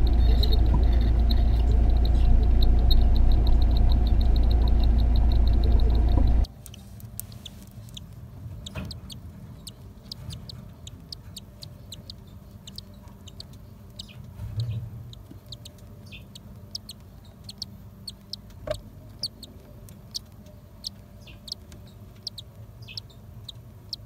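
For the first six seconds, a loud steady low hum with a faint high peeping over it, about three a second. It then drops suddenly to quiet, scattered short high-pitched cheeps of cockatiel chicks in the nest box.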